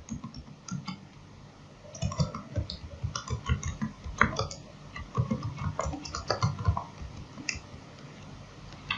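Typing on a computer keyboard: a run of irregular keystrokes that starts about two seconds in and stops about seven seconds in, with one more click near the end.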